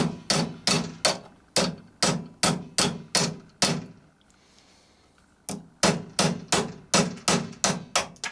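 Small hammer tapping a metal drive tool to push a Hornby model-railway motor's shaft out of its worm gear/flywheel. Quick, evenly spaced metallic taps about three a second, each with a short ring, pausing for about a second and a half midway before carrying on.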